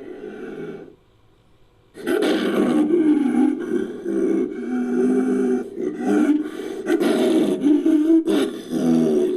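Layered creature roar sound effect made from big-cat and dinosaur roars. A fading call trails off, then after about a second of near silence a long, loud roar with a wavering pitch starts about two seconds in, broken by short pauses.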